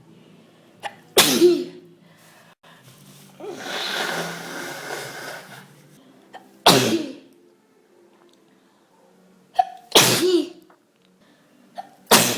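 A woman sneezing four times in a fit, each sharp sneeze followed by a short vocal tail. There are a few seconds of breathy noise between the first two. The fit of sneezes comes with a head cold.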